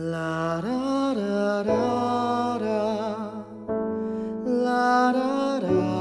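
Gentle, slow soundtrack music: a gliding melody line over sustained chords, coming in suddenly at the start.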